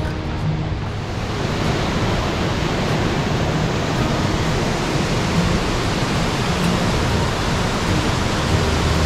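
A large waterfall heard close up: a steady, dense rush of falling water that swells about a second in.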